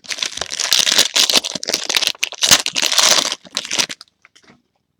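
Plastic trading-card pack wrapper being torn open and crinkled, a dense crackling for about four seconds that stops abruptly.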